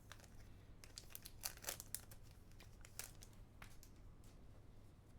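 Faint handling of trading cards and their foil booster-pack wrapper: scattered soft crinkles and flicks, several a second apart.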